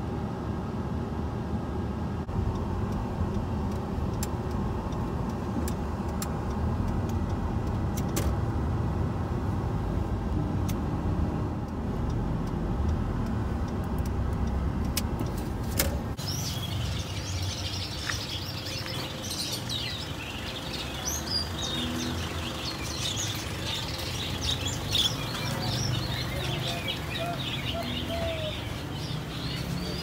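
Steady low road and engine rumble heard from inside a car's cabin. About halfway through, it cuts abruptly to many small caged birds chirping busily together.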